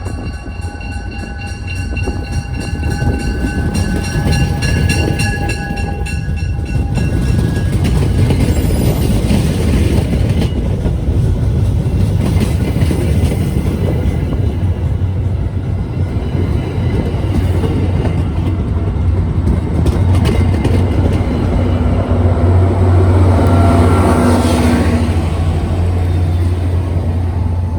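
A train horn sounds a steady chord for about the first seven seconds, over a low rumble. The train then passes with a deep, growing rumble of engine and wheels, loudest near the end.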